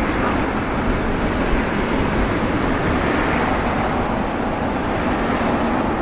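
Engine noise of an approaching Boeing 787-9 airliner on final approach, heard as a steady wash of jet noise without distinct tones.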